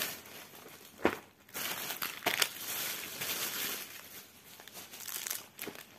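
Crinkling and rustling of parcel packaging being handled, with a sharp click about a second in and another just past two seconds.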